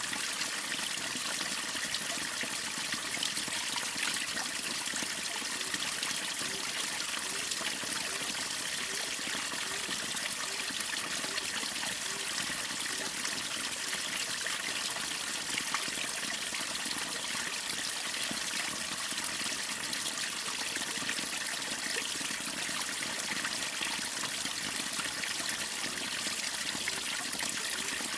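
Water of a small waterfall and stream running steadily: an even, bright rush of splashing and trickling water with no change in strength.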